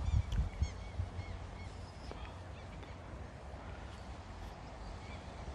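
Birds calling: a quick run of short chirping notes in the first second or two, then scattered calls, over a low rumble that dies down after the first second.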